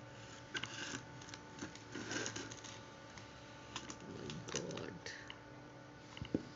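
Quiet, irregular clicks and taps of a metal spoon against a plastic toy dump truck as kinetic sand is scooped into its bed, with a brief faint voice in between.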